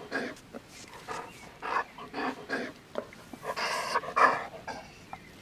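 Large dog panting hard, in quick breaths about two a second, with a couple of heavier, longer breaths late on.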